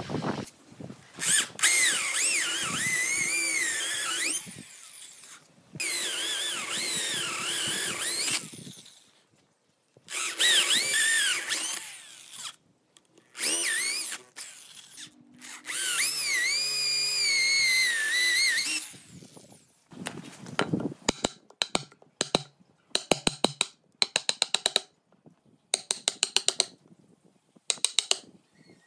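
Cordless drill boring into a hardwood slab with a large bit, in five runs of a few seconds each, its motor whine sagging and recovering in pitch as the bit bites. In the last third, short bursts of rapid clicking as a chisel chops out the drilled mortise.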